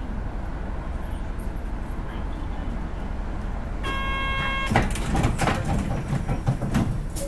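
Hino Blue Ribbon City city bus idling at a stop, engine humming steadily. About four seconds in, a short door-closing warning buzzer sounds, followed by the doors hissing and clattering shut.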